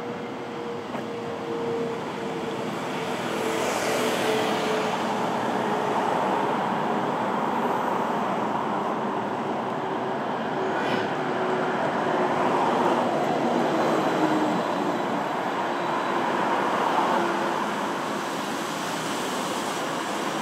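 City traffic noise: a steady wash of road vehicles, growing louder a few seconds in, with a faint held tone slowly sinking in pitch throughout.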